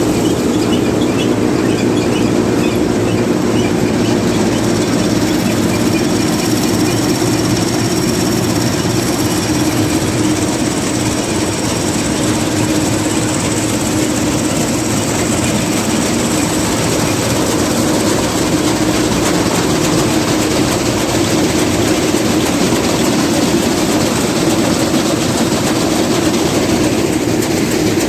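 Niva SK-5 combine harvester running steadily at a constant speed, its engine and threshing mechanisms turning together.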